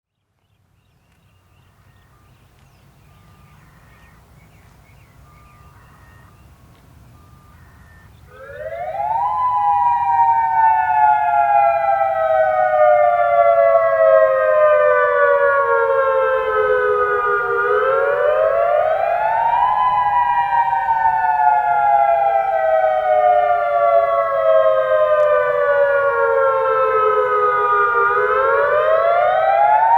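Federal Signal Modulator 2008 dual-tone outdoor warning siren starting up about eight seconds in and sounding a wail during a routine tornado siren test: two close tones sweep up in a couple of seconds, then slide slowly down for about eight seconds, the cycle repeating. Before it starts there is only a faint low outdoor rumble.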